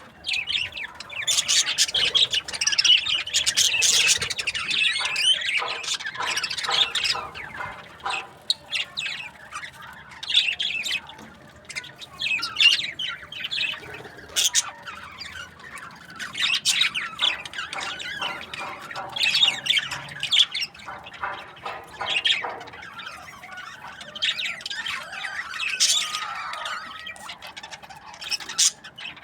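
A group of budgerigars chattering and chirping, many overlapping short calls coming in irregular clusters with brief lulls between them.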